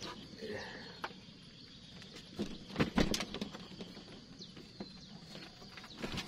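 Scattered taps and knocks over a quiet outdoor background, with a few sharper knocks close together about two and a half to three seconds in.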